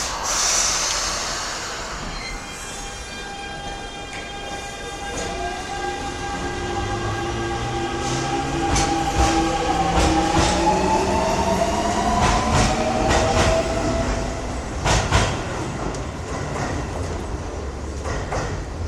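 Metro train departing, heard from outside: a hiss at the start, then the electric motor whine in several steady tones that rise in pitch as the train gathers speed, with wheels clicking over the rail joints as it pulls away.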